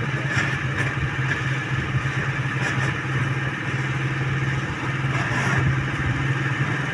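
Vehicle engines running steadily in a low, even drone as a convoy of armoured military vehicles and trucks drives past.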